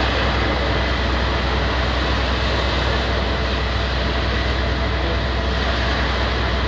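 Fire engine's engine and pump running steadily while pumping water onto the fire, a constant low drone under an even hiss.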